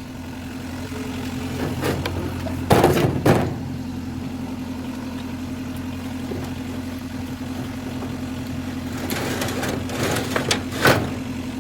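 An engine running steadily at an even idle, with a few short knocks and rattles about three seconds in and again near the end.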